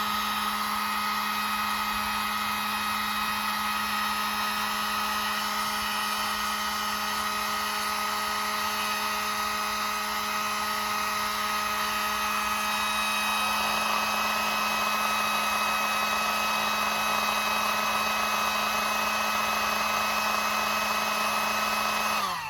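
Electric heat gun running steadily, a fixed motor whine over a rush of air, as it shrinks heat-shrink tubing onto a copper battery-cable lug. The tone shifts slightly a little past halfway, and the sound cuts off suddenly at the end.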